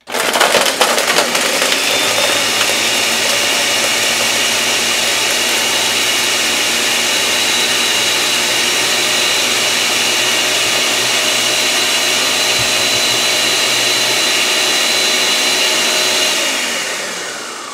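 Countertop blender running at full speed, blending vanilla ice cream, liqueurs and ice cubes into a frozen drink. It starts abruptly, rougher for the first second or so, then runs steadily with a high whine. Near the end it is switched off and winds down, its pitch falling.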